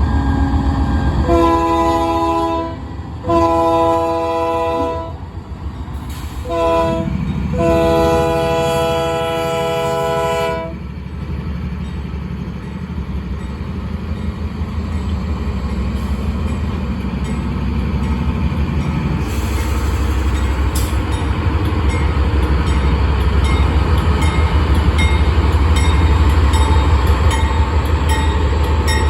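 Union Pacific diesel locomotive's horn sounding two long blasts, a short one and a long one (the grade-crossing signal), over the steady low rumble of the diesel engine. The engine rumble grows louder after the horn stops, as the locomotive works.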